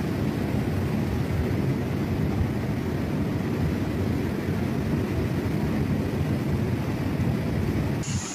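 A swollen, muddy flood river rushing past close by: a steady, deep rumbling roar of torrential water.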